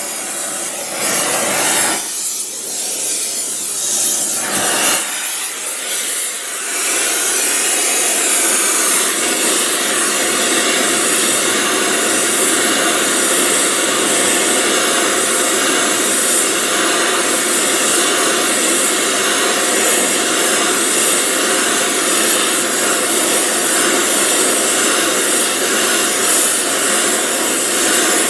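Gas torch flame hissing steadily as it heats a steering arm around a seized drag link ball-joint taper to break it loose. The hiss is uneven for the first few seconds, then holds steady.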